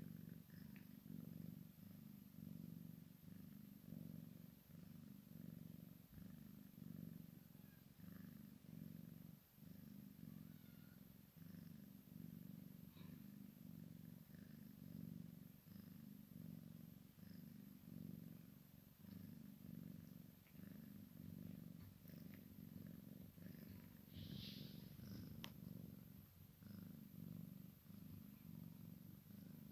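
A cat purring softly and steadily, the purr swelling and easing with each breath.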